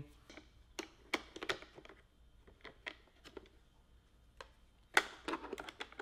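Small plastic clicks and taps as a robot vacuum's main brush roller is fitted back into its housing and the brush guard is snapped shut, with a cluster of louder clicks about five seconds in.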